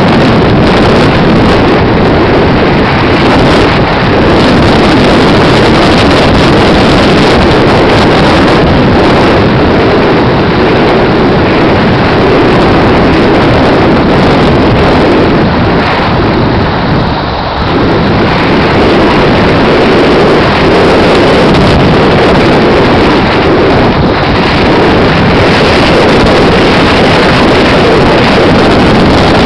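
Loud, steady wind rushing over the microphone of a moving vehicle, mixed with its engine and road noise. It eases briefly about seventeen seconds in.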